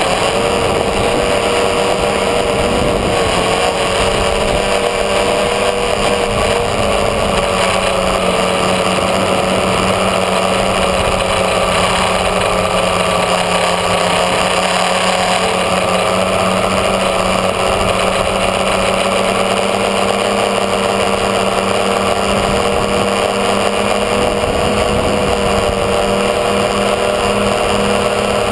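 A multirotor tricopter's electric motors and propellers whine steadily in flight, heard from the onboard camera, over a rush of air. The pitch wavers slightly as the throttle shifts.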